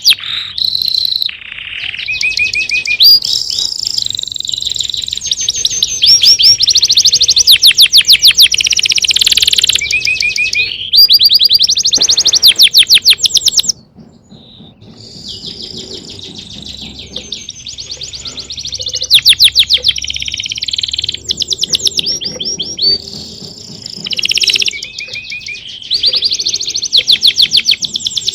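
Songbird singing loud, rapid trills and chirps, the notes repeated in quick runs, with a brief quieter gap about halfway through.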